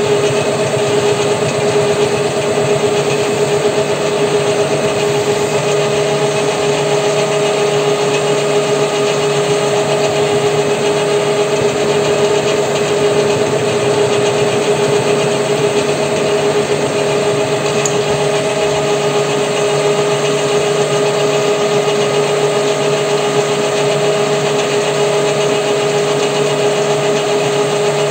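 WM210V benchtop metal lathe running steadily with a constant whine, its carriage driving a cutting tool along a spline groove in a steel half-shaft.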